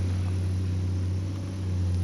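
Heavy excavator's diesel engine running at a steady speed, a constant low drone that eases slightly for a moment about one and a half seconds in.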